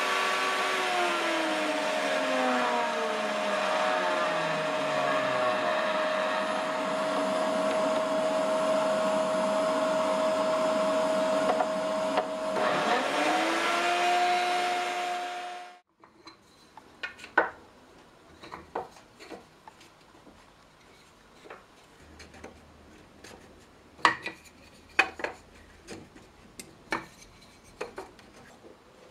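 A bench-mounted electric cutting tool machining cherry barrel staves, with a shop vacuum on its dust hose; the motor tones drop in pitch under load and steady out. It cuts off abruptly about halfway, and is followed by light wooden clicks and knocks as the staves are stood up inside a metal hoop.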